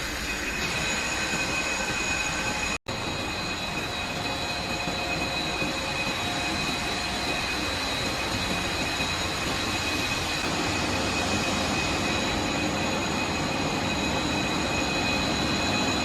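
Fiber cement board production-line machinery running: a steady mechanical noise with constant high-pitched whines. The sound cuts out for an instant about three seconds in.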